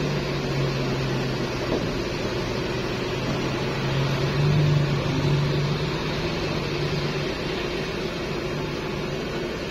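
Coach buses' diesel engines running: a steady idling hum close by, swelling briefly about four to five seconds in as another coach drives off across the lot.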